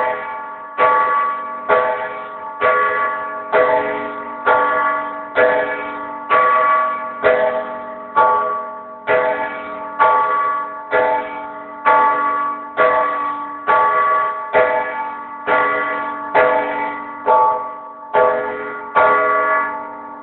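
Large church bell rung by hand, its clapper pulled against the rim by a rope, striking evenly a little faster than once a second with each stroke ringing on into the next. The strokes stop near the end and the ring dies away.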